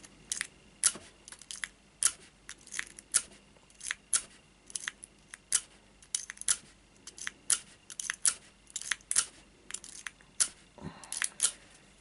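Lock pick and tension wrench working the pin stack of a small brass five-pin padlock: irregular sharp metallic clicks, a few a second.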